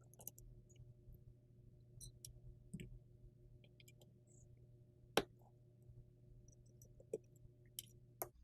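Faint scattered clicks and taps of metal parts being worked while the collar is taken off a Winchester 1897 shotgun's barrel assembly, with one sharper click about five seconds in and a couple more near the end, over a steady low hum.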